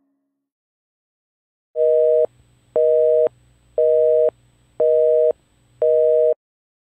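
Telephone busy signal: a steady two-note beep pulsing on and off about once a second, five half-second beeps starting about two seconds in.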